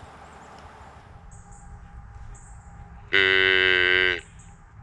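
A single loud, steady buzzing tone of even pitch, lasting about a second and starting about three seconds in, over faint repeated high chirps.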